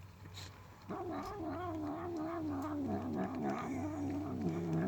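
A semi-feral cat making one long wavering, murmuring vocal sound while eating tuna. It starts about a second in, and its pitch wobbles up and down, then dips lower near the end.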